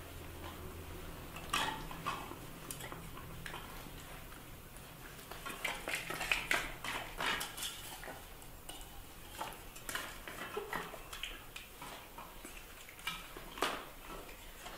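Scattered light clicks and clatters of small plastic toys and claws on a hard tile floor as a puppy and a baby monkey scuffle over them. The clicks come thickest about six to seven seconds in, with another sharp knock near the end.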